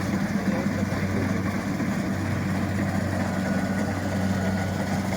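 Kubota rice combine harvester's diesel engine running at a steady speed, a constant low hum with no change in pitch.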